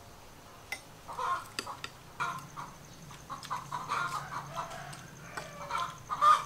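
Chickens clucking on and off in short, irregular calls.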